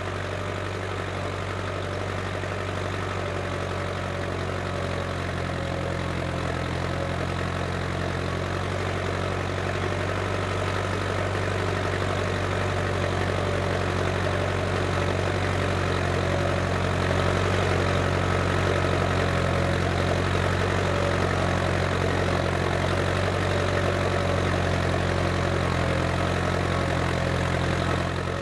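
Case International 885XL tractor's diesel engine running steadily while ploughing, with a deep, even engine note that grows gradually louder over the first half.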